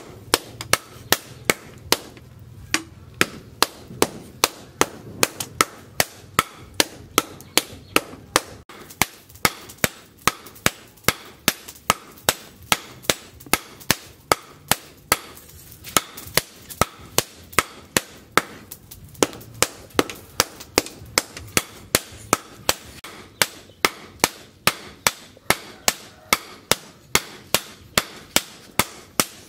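Blacksmith's hand hammer striking steel on an anvil, forging work on plough-disc steel: sharp ringing blows at an even pace of about two to three a second, broken by a few short pauses.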